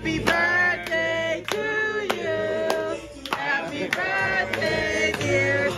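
Background music: voices singing together over a steady percussive beat.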